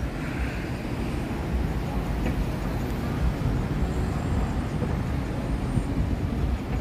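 Street traffic at a busy city intersection: a steady low rumble of car engines and tyres.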